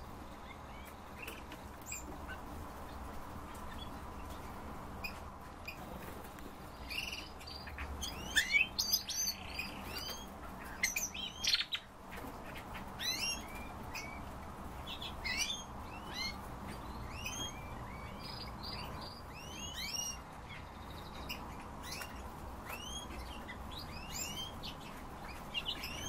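Caged songbirds chirping: short, high calls that come thick and fast from about seven seconds in, then settle to one or two a second.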